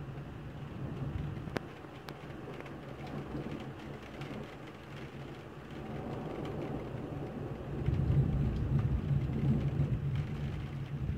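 Steady rain with a low rumble of thunder that builds and is loudest from about eight seconds in. One sharp tick a second and a half in.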